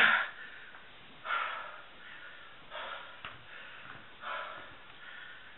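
A man's forceful, heavy breaths as he strains to bend a 7/8-inch Craftsman wrench by hand. There are four short blasts of breath about every second and a half, and the first is the loudest.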